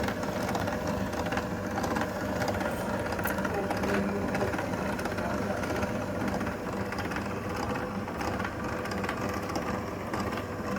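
A motor-driven machine running steadily with a constant hum.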